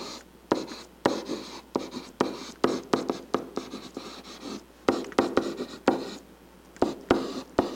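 A stylus writing on a pen-input screen: an irregular run of sharp taps and short scratchy strokes, a few a second, as the letters are written out by hand, with a brief pause about six seconds in.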